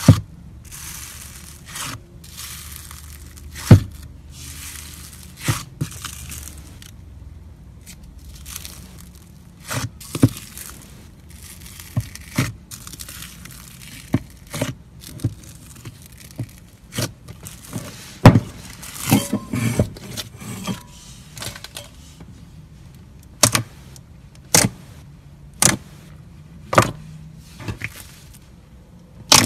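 Hands squishing and stretching thick slime: short bursts of hiss as the bubbly surface is pressed, through the first half, and sharp pops of trapped air, coming about once a second near the end.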